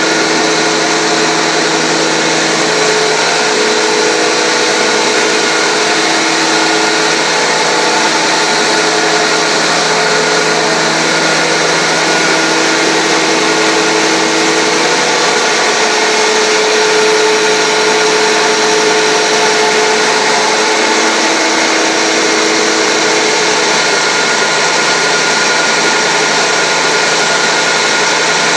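Sawdust fine grinder machine running steadily: a loud, even mechanical noise with a steady hum under it.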